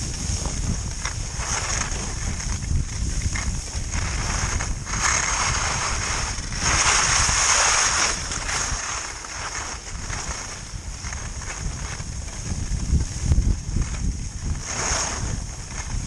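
Skis scraping and hissing over groomed snow during turns, with wind rumbling on the microphone. The scraping swells with each turn and is loudest about seven seconds in, with another swell near the end.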